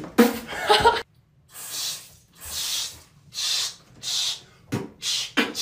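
Beatboxing: a quick run of mouth percussion in the first second. After a short break comes a string of breathy hissing beats, about one every 0.8 s.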